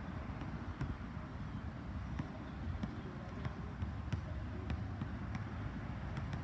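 Basketball being dribbled on an outdoor court: faint, regular bounces about one and a half a second, over a steady low rumble.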